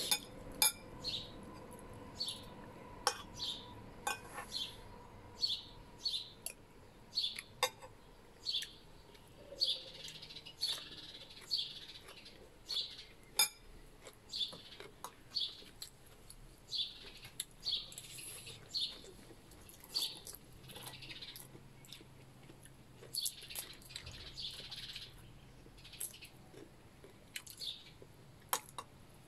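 Birds chirping over and over, short high calls about once a second, with the occasional click of a spoon or fork against a dish.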